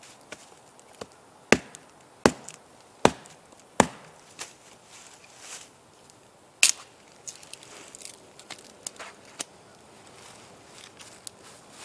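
A large knife chopping a stick of firewood: four sharp whacks less than a second apart, a fifth a few seconds later, then lighter knocks and cracks of wood being handled.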